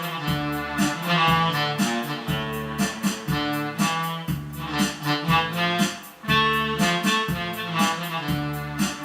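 Electronic keyboard playing a slow Korean trot melody over its own backing of bass and a steady drum beat.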